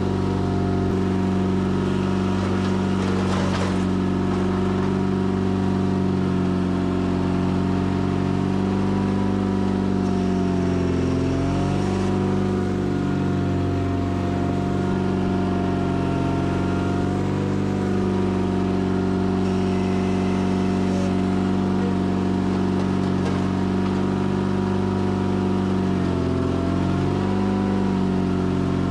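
Sears Craftsman FF24 garden tractor engine running steadily, its pitch dipping briefly twice.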